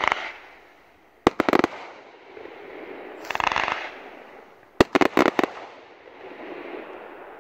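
Ghengis Fireworks category 4 firework cake firing: a sharp bang at the start, then quick groups of three or four loud bangs about a second in and again about five seconds in. A dense burst of crackle comes between the groups, and fainter crackling follows.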